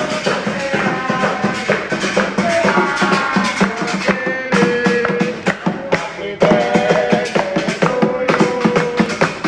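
Background music with drums, a steady beat and a melody line.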